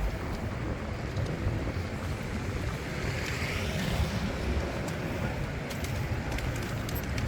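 Steady low rumbling noise of outdoor city ambience at night, with a hiss that swells and fades about halfway through and a few faint clicks.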